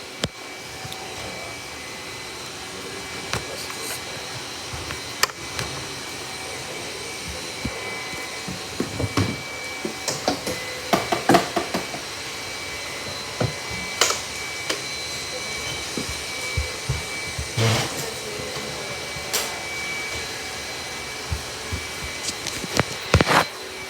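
Robot vacuum cleaner running steadily with a thin high whine, with scattered sharp clicks and knocks, a cluster of them around the middle and again near the end.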